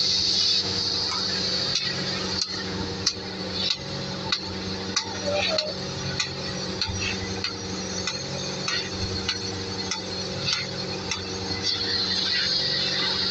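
Oxy-fuel cutting torch hissing as it cuts through the steel framing on a tank, loudest in the first second and again near the end. Sharp metallic clicks and knocks come through the middle, over a steady low hum.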